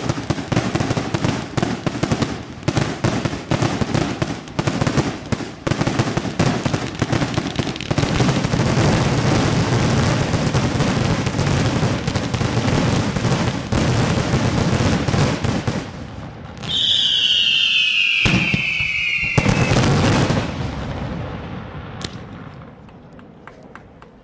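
Daytime fireworks battery firing: a rapid, dense run of bangs and crackles that thickens into a near-continuous rattle in the middle. Later a whistle falls in pitch for about three seconds, then one more loud burst and the firing fades out with a few last pops.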